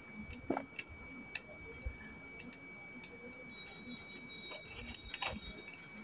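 Faint, scattered clicks and taps of small plastic parts and a tiny screw being handled as the rotor blades of a toy RC helicopter are unscrewed and taken off.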